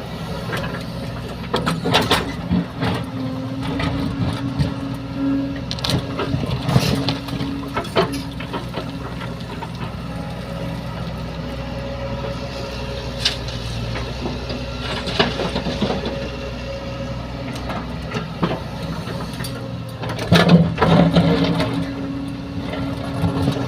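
Kobelco 140 excavator's diesel engine running steadily, revving up twice as the machine works, with scattered knocks and clatter.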